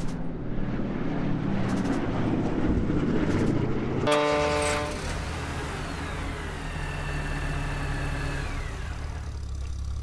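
Layered war sound effects: a rumbling vehicle engine, then a short pitched horn-like blast about four seconds in. A steady low engine drone follows, with a high whistle that slowly falls in pitch.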